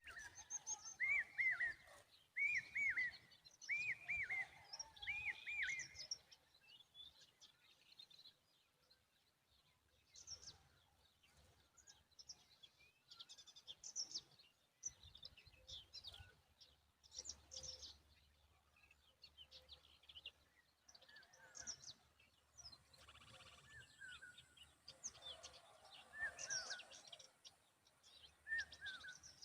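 Common babbler giving alarm calls to protect its young. A run of four loud, arched calls, each rising then falling, comes in the first few seconds. Many short, high chirps follow, and more arched calls come near the end.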